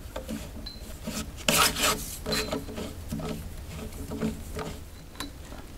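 A broom handle being strapped to a wooden post with bungee cords: a run of rubbing, scraping strokes of cord and wood, loudest about one and a half seconds in, with a sharp click near the end.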